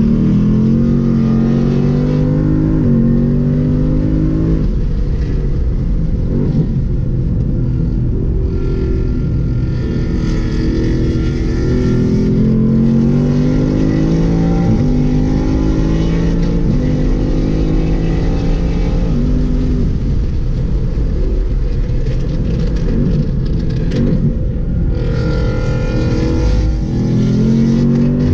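V8 sports car engine being driven hard on a race track, its pitch climbing under acceleration and dropping at gear changes and lifts, over and over.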